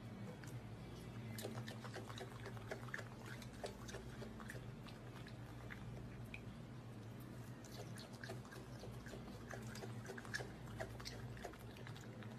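A raccoon chewing and biting pieces of juicy green fruit: faint, irregular small clicks and smacks throughout, over a steady low hum.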